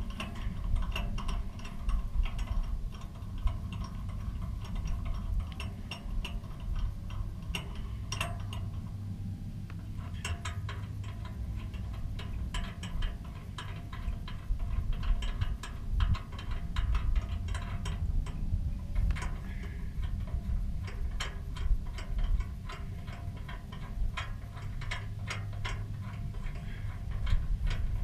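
Ratchet wrench clicking in short runs as the bolts of a motorcycle hitch rack are tightened.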